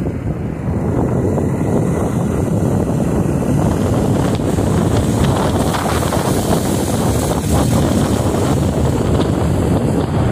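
Wind buffeting the microphone of a moving motorcycle, a steady loud rush with the bike's running engine and road noise underneath.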